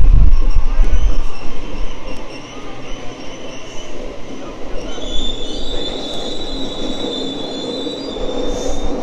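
Sydney suburban electric train moving along the platform, rumbling heavily for the first two seconds, then its steel wheels squealing on the rails. A high steady squeal starts about halfway through and holds for about three seconds.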